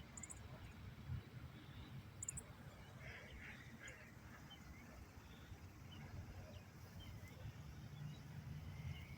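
Geese and ducks calling faintly in scattered short calls, over a steady low rumble.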